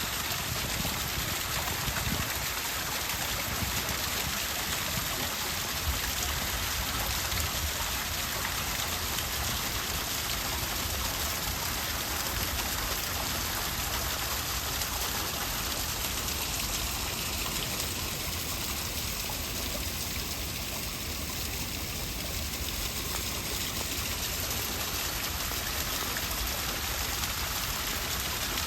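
Steady rush of flowing water, like a small stream or cascade, running evenly throughout.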